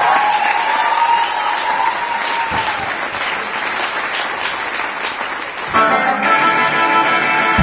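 Theatre audience applauding with a long high whistle over it; about six seconds in, the stage band kicks into an up-tempo rock and roll number led by electric guitar.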